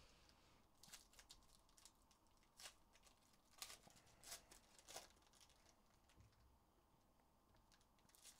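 Faint crackling of a foil Panini Prizm trading-card pack wrapper being torn open and peeled by hand, a handful of short sharp crackles spread over the first five seconds.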